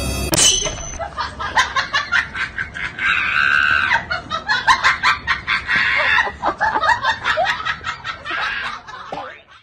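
A person laughing in rapid, high-pitched bursts that come and go, starting right after a sharp click.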